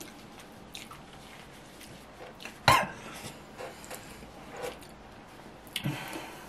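A man coughs once, sharply, about three seconds in, from the burn of the extremely hot One Chip Challenge chip he has just eaten. There are small mouth clicks and a short breathy burst near the end.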